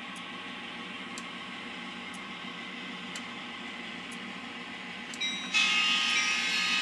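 Model diesel locomotive sound decoder (LokSound Micro) idling through a tiny cube speaker, a steady hum with a faint tick about once a second. About five seconds in, a loud horn blast starts suddenly and holds.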